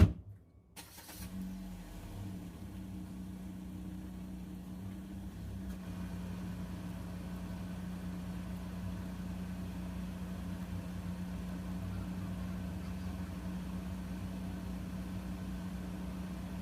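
A sharp click, then a steady low mechanical hum like an idling engine, holding one even pitch.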